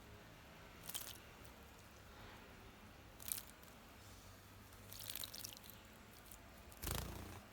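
A bird splashing in a shallow bird bath: four short bursts of splashing and fluttering, the loudest near the end with a dull thud.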